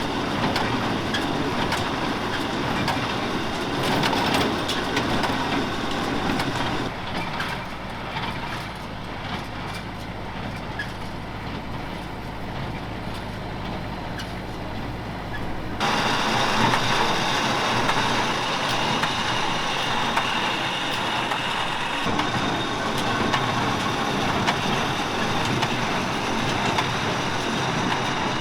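Kubota tractor and International small square baler running in the field, a steady mechanical clatter over the engine. The sound changes abruptly twice, about 7 and 16 seconds in.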